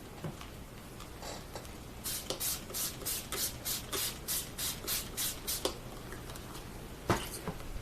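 A quick run of about a dozen rubbing or brushing strokes by hand, roughly three a second, starting about two seconds in and stopping after about three and a half seconds, then a single sharp knock near the end.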